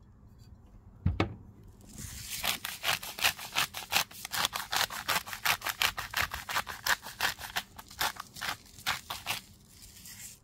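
A soft thump about a second in, then a hand-turned spice grinder being twisted over the plate, a rapid run of crunchy grinding clicks, about four or five a second, that stops near the end.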